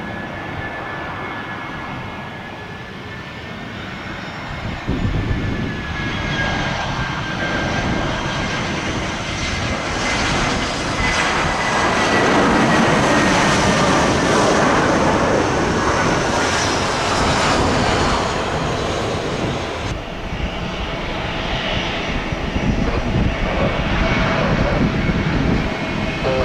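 Jet airliner engines: a steady high whine over a rushing roar and low rumble that grows louder over the first dozen seconds and then stays loud.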